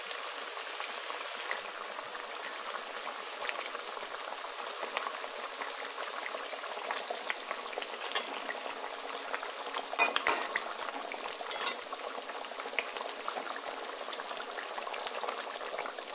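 Thick yogurt-and-tomato fish curry (doi maach) bubbling steadily at the boil in a pan, a constant hiss with fine sputtering crackles. A short clatter of a utensil against the pan about ten seconds in.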